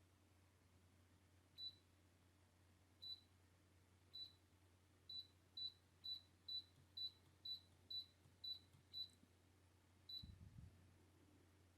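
Short, high electronic beeps from the MYCARBON MF07 table fan's control panel, each acknowledging a button press: three spaced beeps, then a quick even run of about nine at roughly two a second, and one more. A soft low knock comes with the last beep, over a faint steady hum.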